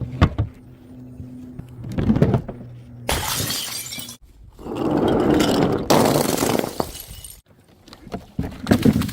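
Glass bottles smashing, one after another: several separate bursts of shattering glass, some single sharp cracks and some lasting about a second as the pieces scatter, with a cluster of sharp breaks near the end.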